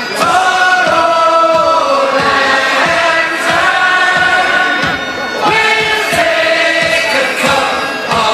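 Music with a choir singing long, slow, held notes in harmony.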